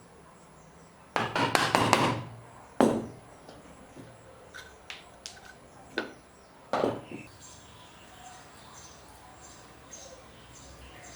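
A hand tool striking pine during hand-cut dovetail work: a quick flurry of knocks about a second in, one sharp blow a moment later, then a few lighter taps. Faint, regular insect chirping runs behind it near the end.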